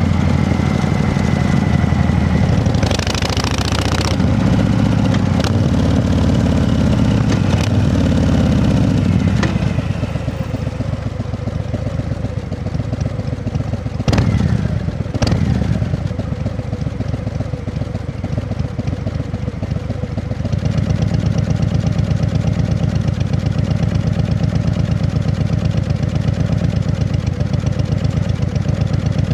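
An engine running steadily. It drops to a quieter, lower run for about ten seconds in the middle and picks up again about two-thirds of the way through. A couple of sharp knocks come near the middle.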